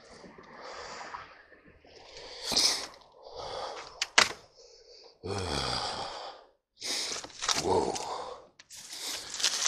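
Close, irregular rustling and breathy noises from someone pushing on foot through dry brush, with a sharp click about four seconds in.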